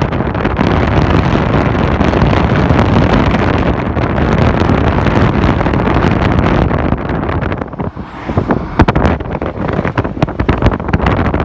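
Steady rush of wind and road noise from a car travelling at road speed, heard from inside with the window beside the microphone. About eight seconds in the noise briefly drops, then turns choppy, with sharp crackles of wind buffeting the microphone.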